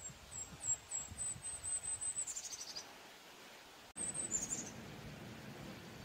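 Golden-crowned kinglet singing: a string of very high, thin notes that speed up, then tumble down into a lower chatter about two seconds in. A second, shorter song follows after a brief break.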